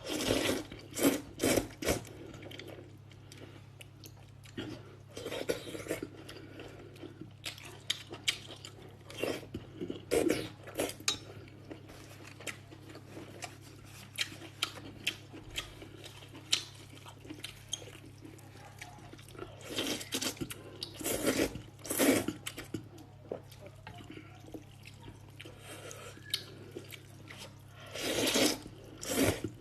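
Close-up eating sounds of hot and sour noodles: irregular wet slurps and chewing, in short noisy bursts with quieter gaps between.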